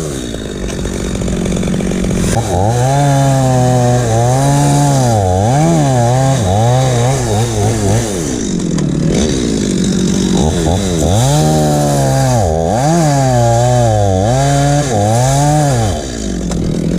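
Chainsaw cutting into a tree, its engine pitch dipping and recovering over and over as the chain bogs under load and frees up again.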